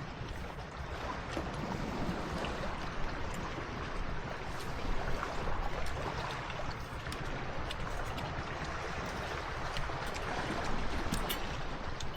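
Steady wash of water, small waves on a beach, with a few faint scattered ticks.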